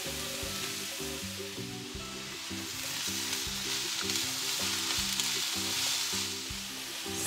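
Diced eggplant, onion and carrot sizzling in oil in a hot frying pan while a silicone spatula stirs them. Quiet background music plays underneath.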